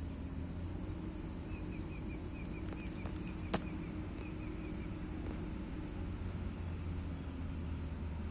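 Hitachi excavator's diesel engine running at a steady hum, with one sharp click a little before the middle and a run of short, high, evenly repeated chirps over about three seconds.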